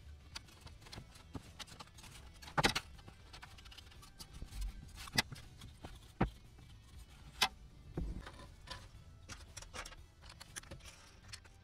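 Irregular light clicks, taps and knocks of small model-building parts being handled and set down on a workbench, the loudest a double knock a few seconds in, over a low steady room hum.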